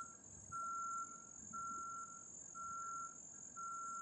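Vehicle reversing alarm beeping at one steady pitch, about once a second, with a steady high insect trill behind it.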